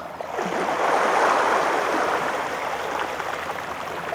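Sea water washing against the shore, a rush that swells about half a second in, is loudest around a second in, then eases off.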